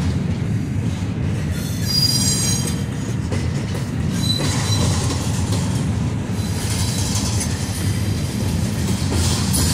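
Double-stack intermodal well cars rolling past, with a steady low rumble of steel wheels on the rails. Brief high-pitched wheel squeals sound about two seconds in and again a little after four seconds.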